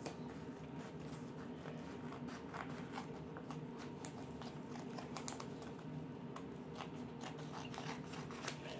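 Wallpaper rustling and crinkling in short crackles as it is handled around a cardboard cover, with scissors cutting through it near the end, over a steady low hum.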